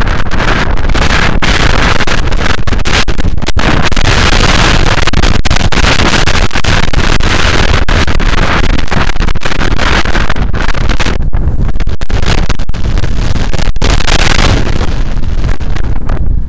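Loud, steady wind rush buffeting a cheap camera's microphone on a moving scooter, drowning out other sound. It dips briefly many times and thins a little in the second half.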